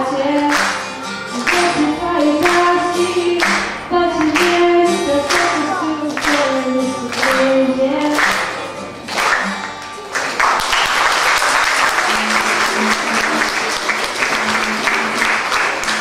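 A song sung over a backing track with a steady beat, which stops about ten seconds in; the audience then applauds.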